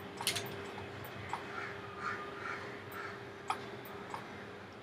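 Faint bird calls in the background, a few sharp clicks from a computer mouse, and a steady low electrical hum.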